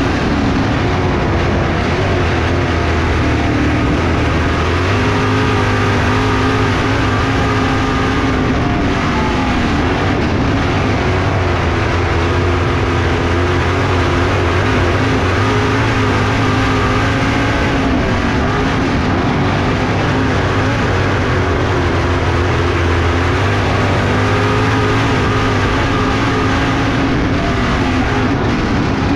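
Pro Stock dirt-track stock car's engine at racing speed, heard from inside the cockpit over a loud rushing noise. Its pitch drops and climbs back several times as the driver lifts off and gets back on the throttle lap after lap.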